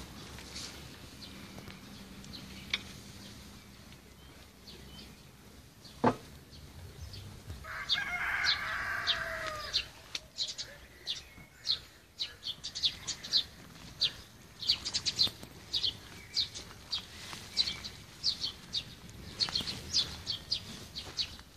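Small birds singing in short, high, rapidly repeated chirps through the second half, with a rooster crowing for about two seconds near the middle. A single sharp knock about six seconds in.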